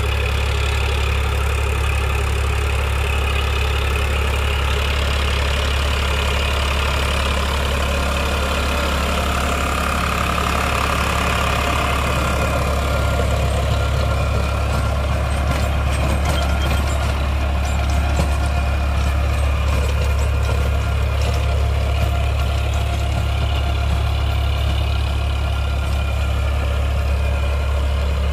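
Eicher 551 tractor's diesel engine running steadily under load while it pulls a rotary tiller through dry soil, with a grainy rattle of blades and soil mixed in from about halfway through.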